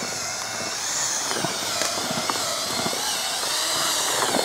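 Electric drill with a mixer paddle, stirring groundbait. Its motor whine wavers up and down in pitch, with scattered knocks.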